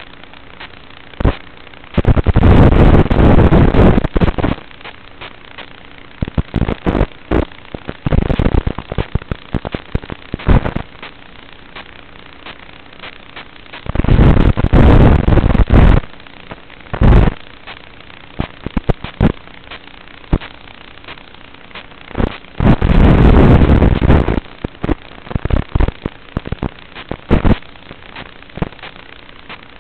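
FPV racing quadcopter's motors and propellers, picked up by its onboard microphone: four loud, clipping bursts of about two seconds each as the throttle is punched, with short crackles and pops between them over a low steady hum.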